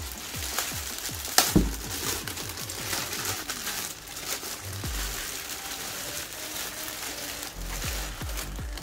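Clear plastic bag crinkling and crackling as it is pulled off a bookshelf speaker, with one sharp loud crackle about a second and a half in. Electronic dance music with a steady kick-drum beat plays underneath.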